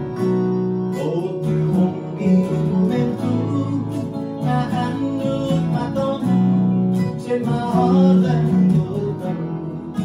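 A small band playing live: strummed acoustic guitar with electric bass, electric keyboard and electric guitar, changing chords in a steady rhythm.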